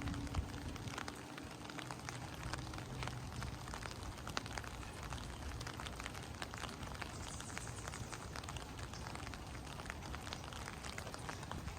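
Steady rain falling, with many separate drops ticking sharply on surfaces.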